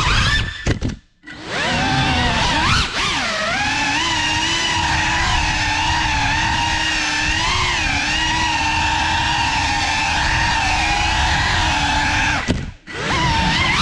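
Brushless motors and propellers of a small GEPRC FPV quadcopter whining, the pitch wavering up and down with the throttle. The sound cuts out briefly about a second in and again near the end, then rises again as the motors spool back up.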